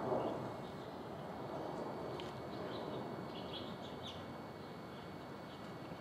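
Bird calling: a quick series of short, high chirping notes around the middle, over a steady background hiss.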